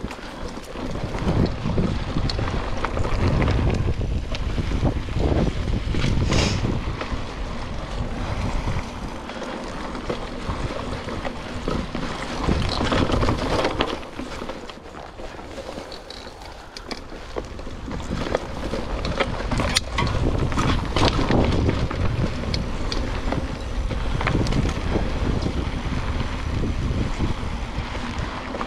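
Mountain bike rolling fast over dirt singletrack, with wind rushing over the action camera's microphone. Tyre noise and frequent knocks and clicks from the bike going over bumps ride on top. The sound eases for a few seconds about halfway, then builds again.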